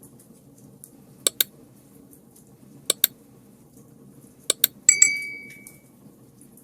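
Three pairs of sharp clicks about a second and a half apart, then a clink that rings on briefly with a clear tone and fades, like glass or metal being struck, over a faint low background noise.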